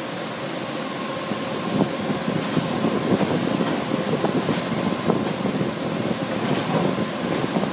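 Steady whir of a supercomputer room's cooling fans. From about a second and a half in, a rumbling rattle with occasional clicks builds as the rack is rocked side to side on its ball-bearing earthquake isolation base.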